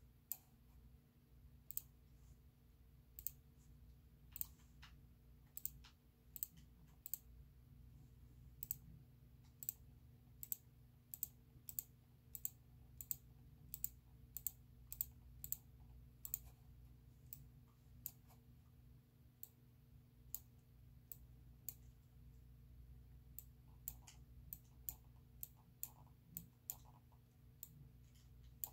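Quiet, sharp computer clicks, one every half second to second at an uneven pace, over a steady low hum. Each click places a node while a Bezier outline is traced in CorelDRAW.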